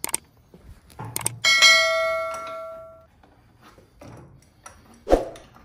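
A metal tool or part is struck against metal and rings like a bell, several clear tones fading out over about a second and a half. Light clicks of tool handling come before it, and a single knock falls near the end.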